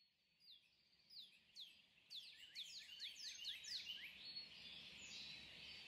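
Faint birdsong: many short chirps, each sliding down in pitch, thickening into an overlapping chorus from about two seconds in.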